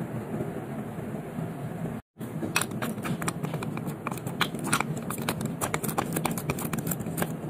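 A steady low background hum, then, after a brief cut about two seconds in, a run of small irregular clicks and taps as a clear plastic watch case is handled and pressed with a nylon-jawed case tool.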